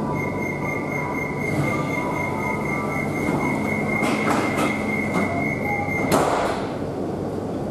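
Changsha Metro Line 4 subway car running, heard from inside the car: a steady rumble with a steady high-pitched squeal that lasts about six seconds and cuts off sharply with a short hiss.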